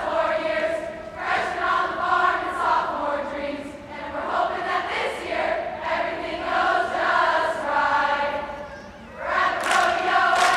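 Many voices singing or chanting together in long held notes, phrase after phrase, with a brief dip a little before the end. Sharp hits come in near the end.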